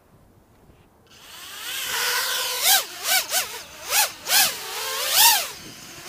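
Brushless motors and propellers of an Eachine Wizard X220S FPV racing quadcopter spinning up about a second in. The whine rises and then swoops up and down in pitch about six times as the throttle is blipped, and the quad lifts off near the end.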